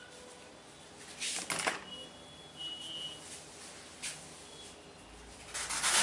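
Massage handling noises: two short bursts of rubbing or brushing, one about a second in and one at the very end, with a single sharp click and a brief high-pitched squeak between them.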